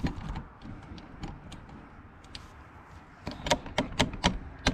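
Handling noise as a camera is set down and positioned: scattered clicks and knocks, with a quick run of louder taps and bumps near the end.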